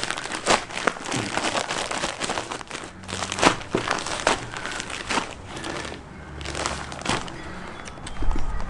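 Pheasant strips being shaken in a bag of flour-and-breadcrumb breading to coat them, the bag rustling in irregular bursts.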